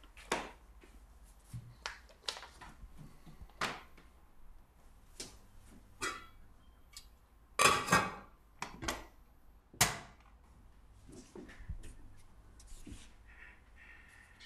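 Kitchen handling noises: scattered light knocks and steps, then a stainless steel pot and lid clattering loudly about eight seconds in, followed by a single sharp metal clank about two seconds later.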